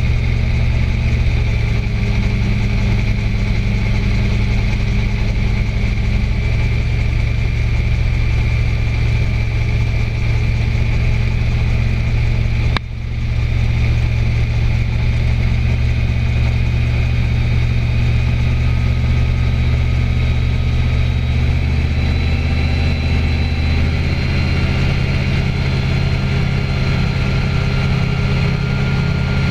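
Small aircraft's engine and propeller droning steadily in flight. The sound dips briefly about 13 seconds in, then carries on.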